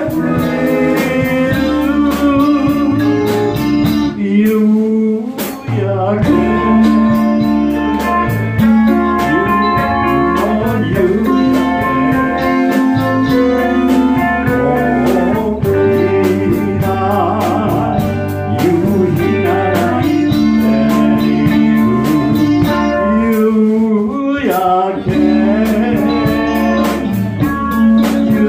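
Live rock band playing a 1960s Japanese group-sounds song, with electric guitar and a singer over a steady beat.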